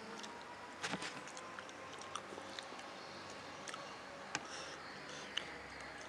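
A person eating with his hands: faint chewing and scattered small clicks as meat is picked off the bones of a small cooked bird, with a couple of sharper clicks about a second in.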